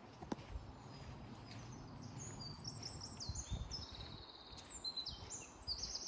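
Footsteps on a sandy forest path, with a small songbird singing high, trilling phrases from about two seconds in.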